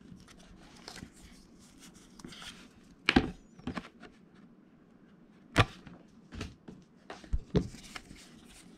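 Trading cards and booster packs being handled on a table: a few scattered sharp taps and clicks, with faint rustling between them.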